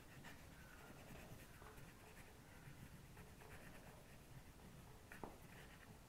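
Faint scratching of a paintbrush stroking paint onto paper in short, repeated strokes, with one sharp tap about five seconds in.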